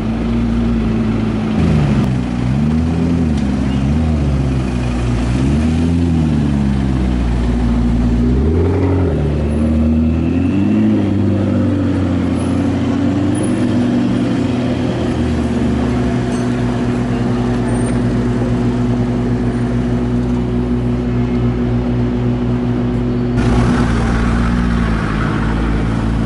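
Car engine revving up and down several times, then running at a steady idle, with a change in the sound near the end.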